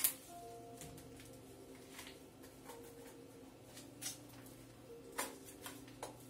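Handling noise from a Cup Noodles paper cup being turned over in the hands: scattered sharp clicks and crinkles, the loudest right at the start, over a faint steady hum.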